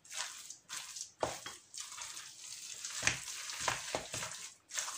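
A bare hand mixing a moist chicken-liver and rice filling in a glass bowl: irregular squishing and swishing with short clicks.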